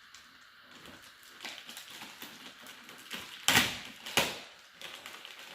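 Gift wrapping paper being torn open, with light rustling and then two loud rips about three and a half and four seconds in.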